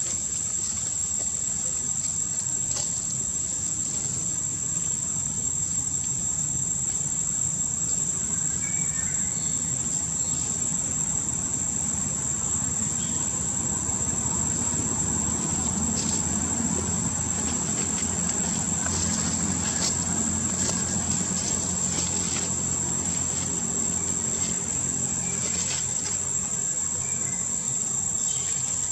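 Steady, high-pitched drone of an insect chorus, with a low rumble underneath that swells and fades in the middle.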